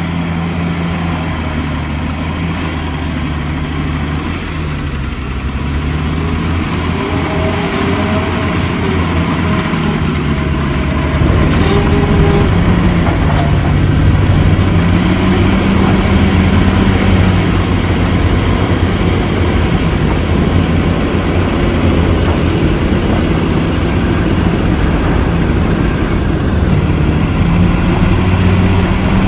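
Heavy construction machine's diesel engine running under load, its pitch rising and falling every few seconds as it is throttled up and down, growing louder about a third of the way through.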